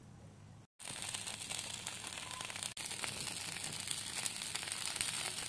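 Egg, sauce and Japanese tofu sizzling in a hot frying pan: a dense, steady crackle that starts suddenly about a second in, after a quiet start.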